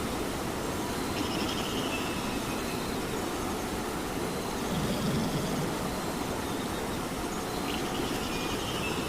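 Steady rain, an even hiss with no pauses. Faint high tones slide downward in pitch about a second in and again near the end.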